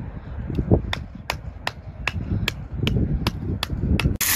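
Outdoor wind rumble on the microphone with a regular sharp ticking, about two and a half ticks a second. Near the end it cuts suddenly to a loud steady hiss.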